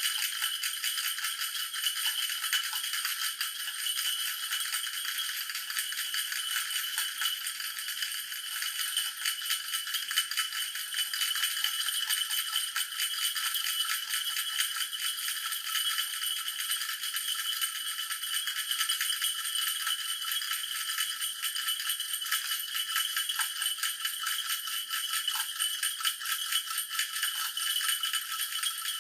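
Toy bell jingling continuously: a dense, rapid rattle of small strikes over steady high ringing tones, keeping an even loudness throughout.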